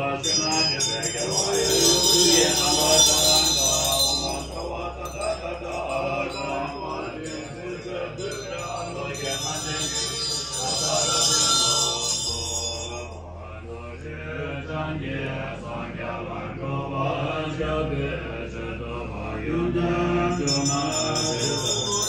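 Tibetan Buddhist mantra chanting with musical accompaniment: low chanting over a sustained drone that shifts pitch every few seconds, with a bright high shimmer coming and going.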